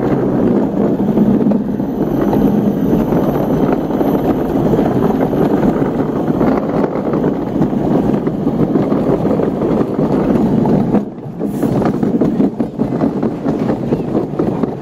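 Gravity luge cart rolling fast down an asphalt track: a loud, steady rumble of its wheels on the road with wind on the microphone, dropping away briefly about eleven seconds in.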